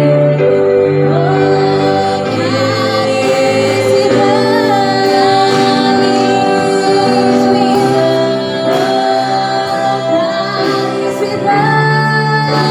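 Worship song: singing led by a woman's voice with other voices joining, over long held chords that change step by step.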